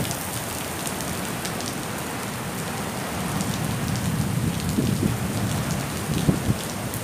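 Heavy rain pouring in a rainstorm, a steady hiss with scattered drop ticks.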